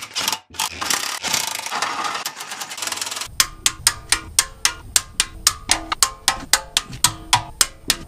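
Socket ratchet clicking as the oil sump bolts are run in. A dense rapid clatter for about three seconds is followed by even clicks about four a second over a low hum.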